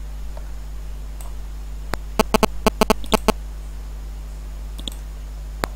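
Computer mouse clicking: a quick run of about ten sharp clicks about two seconds in, and another run starting near the end, over a steady low electrical hum.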